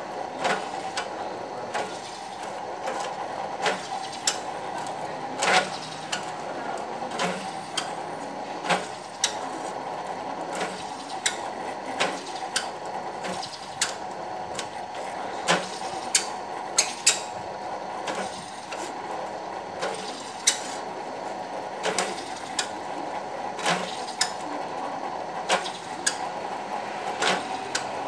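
Bench drill press running steadily while holes are drilled one after another in a thin metal plate, with a sharp metallic click every second or two.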